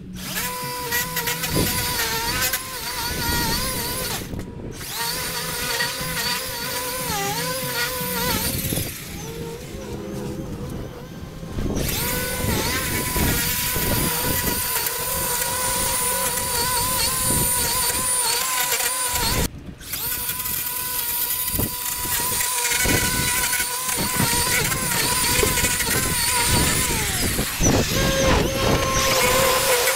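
Battery-powered EGO lawn equipment running with a steady electric-motor whine that wavers and dips now and then as the load changes. The sound breaks off abruptly and resumes three times.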